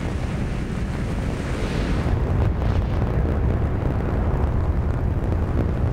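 Steady, deep rumble of wind noise, getting a little louder about two seconds in.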